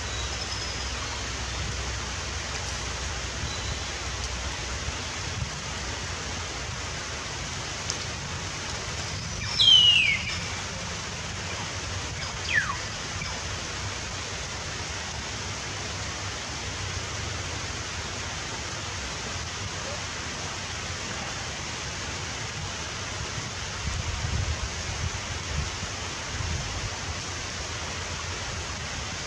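Steady hissing noise throughout, with a loud, short falling whistle about ten seconds in and a fainter one a couple of seconds later, and some low rumbles near the end.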